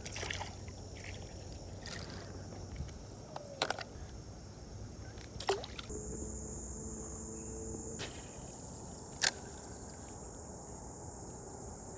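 Steady high chorus of insects, with a few sharp clicks and knocks, the loudest about nine seconds in.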